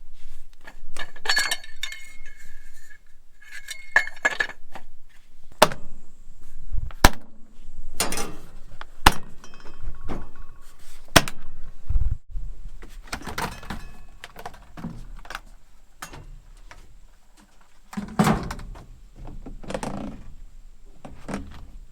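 Metal tools and combine parts clinking and knocking as the machine is worked on by hand: scattered sharp metallic strikes a second or two apart, the first few ringing briefly.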